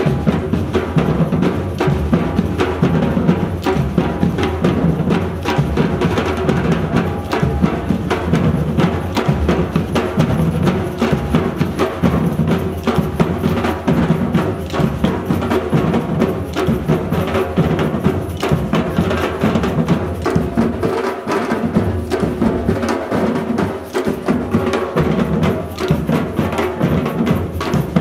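Street drum troupe beating barrel-shaped drums with sticks in a dense, driving rhythm. The deep drum notes drop back for a few seconds about two-thirds of the way through.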